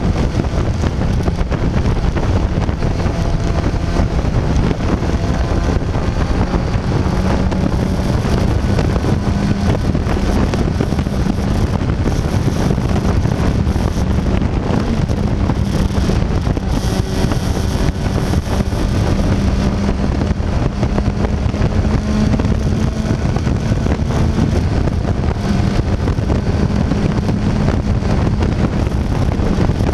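Sport motorcycle cruising at speed: a steady engine drone that wavers slightly in pitch, under a constant rush of wind noise on the microphone.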